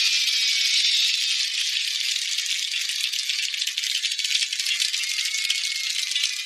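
A continuous, dense rattling like a shaker, thin and high with no low end, holding a fairly steady level throughout.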